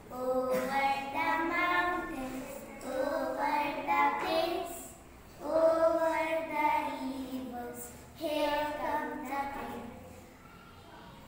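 Young girls' voices reciting a rhymed English children's poem in a sing-song chant, in phrases with short pauses, ending about ten seconds in.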